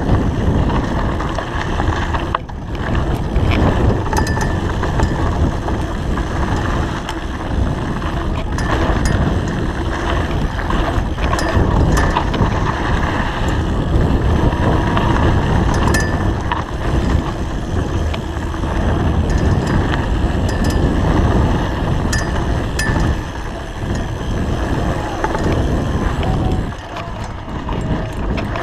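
Mountain bike ridden fast down a dirt and gravel slalom course: wind buffeting the microphone over the tyres' crunch on dirt. Sharp clicks and rattles from the chain and bike come through all along as it goes over bumps and berms.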